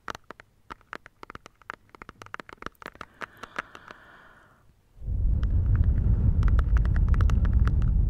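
Fingers tapping on plastic in quick, irregular taps. About five seconds in, a loud low rumbling noise starts and carries on under the taps.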